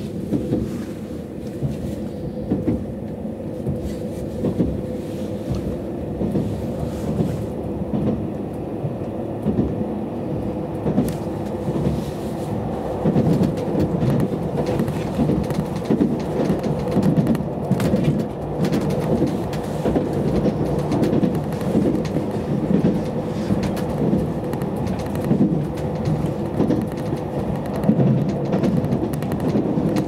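Running noise inside a JR Hokkaido 789-series electric limited express: a steady low rumble of wheels on rail under a steady hum. It grows louder about halfway through as the train gathers speed after departing a station.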